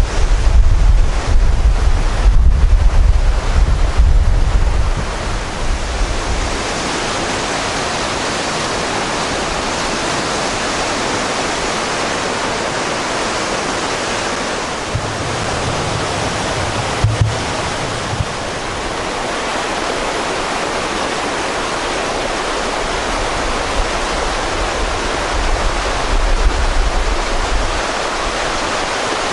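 Muddy mountain stream in spate, rushing steadily over its stony bed. Wind buffets the microphone with a low rumble for the first five seconds or so, and briefly again in the middle and near the end.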